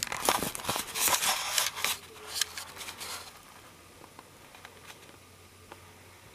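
Handling noise, a quick run of clicks, taps and rustles lasting about three seconds, then faint room tone.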